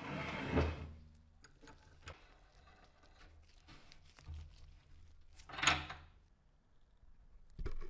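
Small bench vise being handled: a second-long clatter at the start, then the clamp screw's sliding T-bar handle slips through the screw head and clacks against its stop about five and a half seconds in, and a short low thump near the end.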